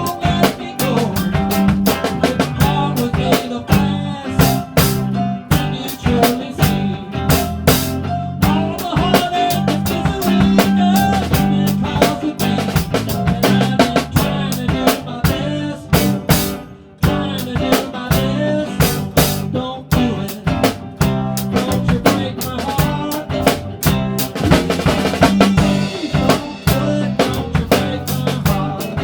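Rock band playing, led by a four-piece drum kit with bass drum and a 5.5 x 14 stave-segment snare, including rimshots. About halfway through the music drops out for a moment, then the band comes back in.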